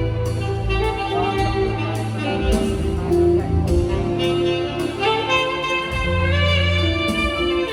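Saxophones playing a melody in held notes over live band accompaniment with a steady bass line.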